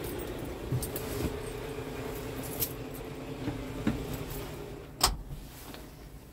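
Scania R truck's diesel engine idling with a steady low hum, heard inside the cab, with a few light clicks and knocks of handling against the cab fittings, the sharpest about five seconds in.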